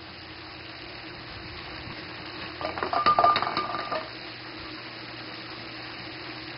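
A burst of metallic clinking and rattling, with a brief ringing tone, about two and a half seconds in, lasting about a second and a half. Under it runs a steady low hum like an idling engine.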